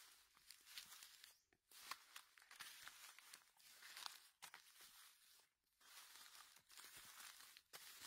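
Faint rustling and crackling of dry fallen leaves being handled, with scattered small clicks, as chanterelle mushrooms are cut and picked from the leaf litter.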